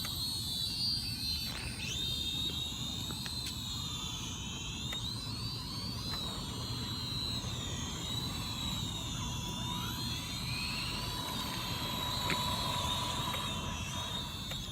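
Small toy quadcopter drone's motors and propellers whining in flight, several high tones rising and falling together as the throttle changes.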